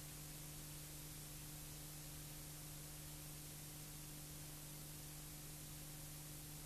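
Faint, steady hiss with a low, constant hum: the empty audio track of a video transfer playing behind colour bars.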